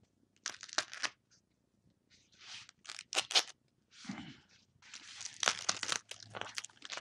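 Paper and plastic mail packaging handled by hand, crackling and rustling in several short irregular bursts.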